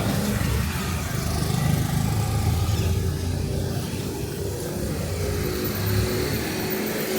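Street traffic: car and motorcycle engines passing along the avenue, a steady low rumble that swells and eases.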